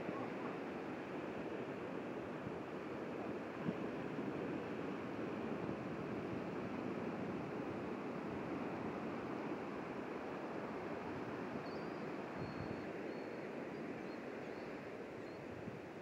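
Steady outdoor rushing noise with no distinct events. A few faint, short, high bird chirps come near the end.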